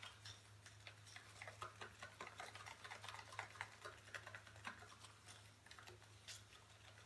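Faint, irregular little clicks and scrapes of a mixing stick stirring epoxy resin and hardener in a mixing cup, over a steady low hum.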